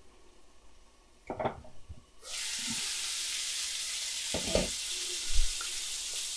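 Ground meat and onions frying in a pan, a steady sizzle that starts suddenly about two seconds in. A few knocks of a utensil against the pan sound over it.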